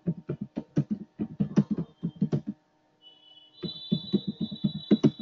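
Typing on a computer keyboard: quick, irregular keystroke clicks, with a short pause about two and a half seconds in. A steady high-pitched whine comes in about three seconds in.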